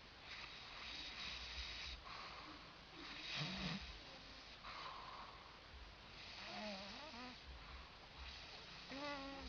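A person snoring: a series of noisy breaths, each about a second long, repeating every second or two.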